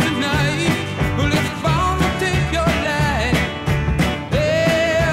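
Background music with a steady drum beat and a wavering lead melody.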